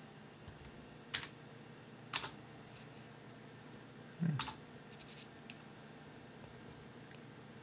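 A handful of separate key presses on a computer keyboard, single clacks spread a second or so apart, with a duller thump in the press about four seconds in.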